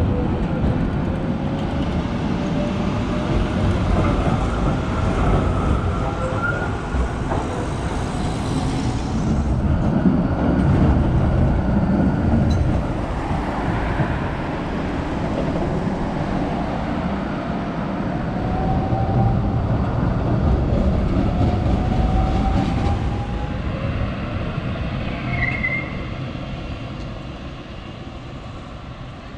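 Rail vehicle rolling past: a steady rumble of wheels on the track, with faint squealing tones that now and then rise in pitch. It fades away over the last few seconds.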